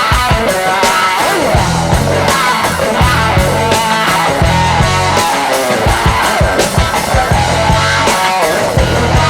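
Background rock music with guitar and a steady driving beat.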